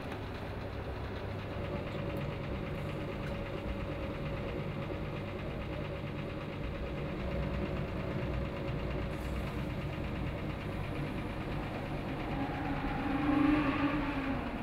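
Steady low mechanical hum, like an engine running, with a brief louder pitched sound near the end.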